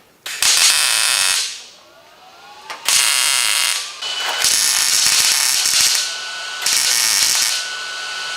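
MIG welder laying tack welds on sheet-metal body panel: four short bursts of welding crackle, each about a second long, with pauses between.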